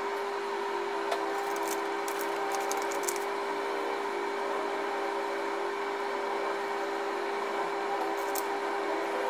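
Long-reach demolition excavator running, its engine and hydraulics making a steady hum. A few short crackles of crumbling masonry come about one to three seconds in and again near the end as the jaws bite the roof edge.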